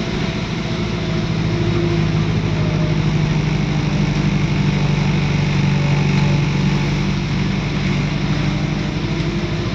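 The diesel engine of a diesel-converted ADL Enviro400 double-decker bus running steadily. Its low drone swells from about two seconds in and eases off again near the end.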